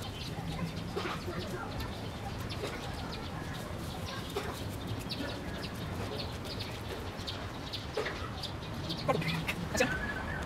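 Street ambience: birds calling in short bursts over a steady low rumble, with scattered light clicks. A few louder calls come near the end.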